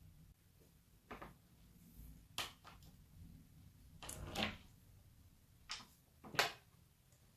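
A handful of short knocks and clacks from things being picked up, handled and set down on a workbench, with a longer scrape about four seconds in and the loudest knock near the end.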